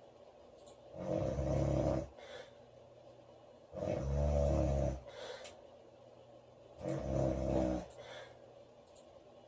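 A woman snoring loudly in a steady rhythm: three snores about three seconds apart, each about a second long, with a fainter breath out after each.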